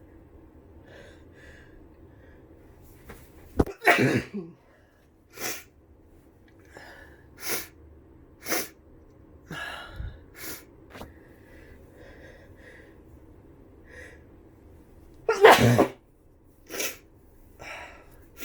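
A person with the flu sneezing: one sneeze about four seconds in and a louder one near fifteen seconds, with short breathy sounds between.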